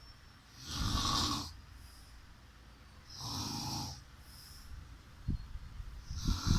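Snoring: three long, noisy breaths, about two and a half seconds apart.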